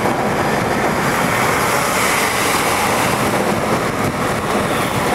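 Steady rushing road and wind noise of a moving bus, heard from a passenger seat, with wind on the microphone.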